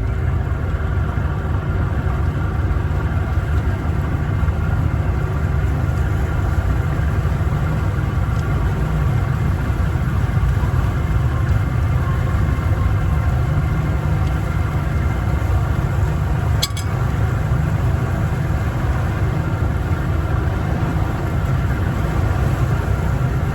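Boat engine on a 1984 Grady White Overnighter running steadily under way, a continuous low rumble with a steady hum above it. The owner reckons the engine needs a tune-up. A brief click sounds once near the middle.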